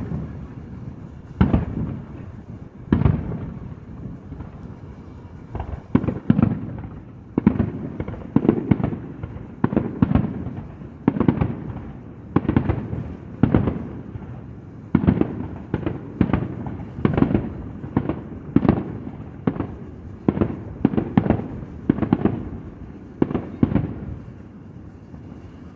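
Aerial fireworks bursting in a long series of booms, each with a rumbling, echoing tail. The bangs are a second or more apart at first, then come about one a second or faster from a few seconds in.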